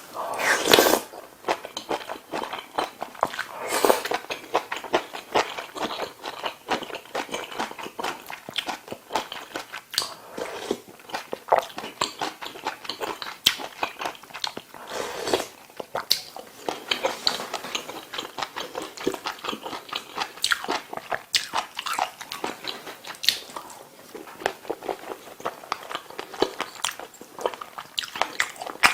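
Close-miked eating sounds of a person chewing a meal of kimchi stew, ramen noodles and rice: steady, irregular wet chewing clicks, with a few longer, louder mouthfuls about a second in, about four seconds in and near the middle.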